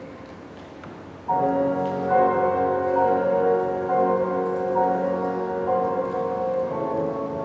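Recorded dance music: quiet for about the first second, then sustained chords come in suddenly and hold, changing slowly.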